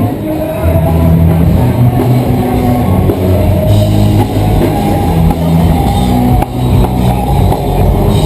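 Rock music with drums and guitar.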